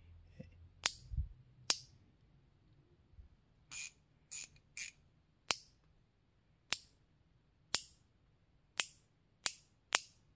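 Flex-head detent of a Tekton 1/4 inch drive 90-tooth quick-release ratchet clicking as the head is swung by hand from one position to the next: a series of sharp single metallic clicks, roughly one a second, with three in quick succession in the middle.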